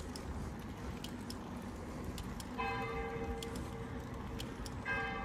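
Bicycle rolling over a paved and cobbled street: a steady rumble with light rattling clicks. About halfway through a held, pitched tone sounds for about two seconds, and another begins near the end.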